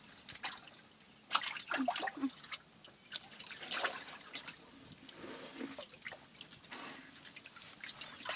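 Hands sloshing and splashing in a shallow pool of muddy water, with irregular small splashes and trickles as they grope for fish.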